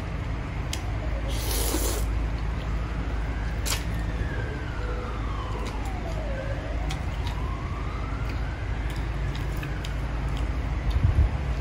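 A siren wailing, its pitch sliding slowly down and then back up, over a steady low hum. There are a few light clicks and a short hiss about a second and a half in.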